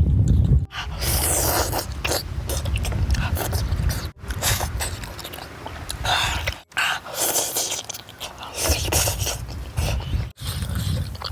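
A person eating Korean food close to the microphone: chewing and biting with scraping sounds, in stretches broken by several abrupt cuts.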